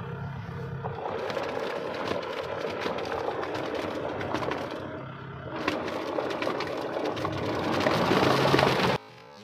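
Kubota MU5501 4WD tractor's diesel engine running under load while its rotavator, cover open, churns deep wet mud, with a dense clatter of slapping and splattering from the blades. The noise builds toward the end and cuts off suddenly.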